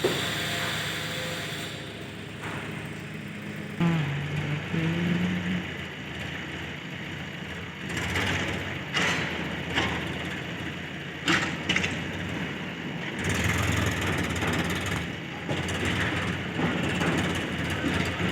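Diesel engine of a backhoe loader running at work, with several sharp metallic clanks about halfway through.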